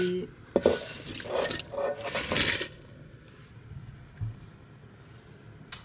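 Fried potato chips tipped from a stainless-steel bowl into a pot of sauce: a run of sliding, splashing noise for about two and a half seconds, then quieter, with a light knock and a click near the end.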